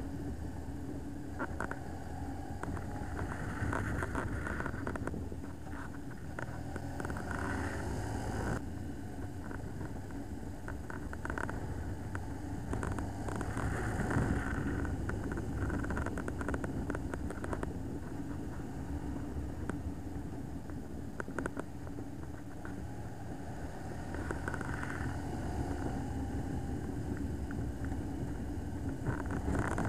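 Motorcycle on the move, heard from the rider's camera: a steady engine drone mixed with wind and road noise.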